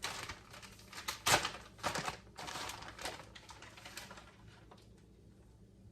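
Crinkling and rustling of plastic cheese packaging being handled, a run of sharp crackles that dies away about four and a half seconds in.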